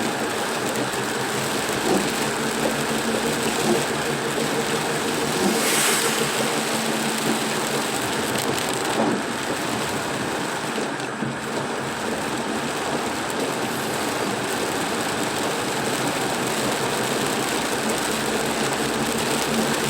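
Car driving through heavy rain: a steady rush of rain on the car and tyres on the wet road, with the engine's faint hum underneath and a brief louder swish about six seconds in.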